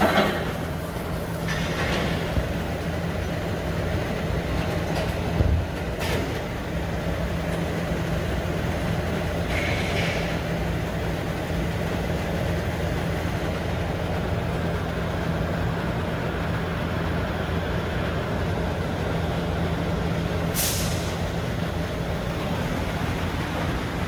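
Steady low mechanical hum of workshop machinery, with a few faint clicks and short hisses, the clearest about twenty seconds in.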